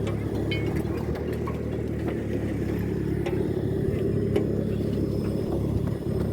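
Tractor engine running steadily, heard from aboard the ride, with scattered light clicks and rattles.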